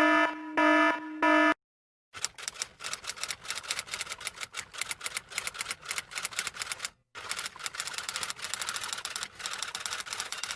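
Three short pitched beeps, then a rapid typing sound effect: a dense, irregular run of key clicks lasting about eight seconds, with a brief pause past the middle.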